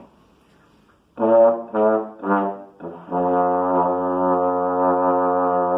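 Tenor trombone playing three short low notes, then one long held low note: the lowest note this trombone can play.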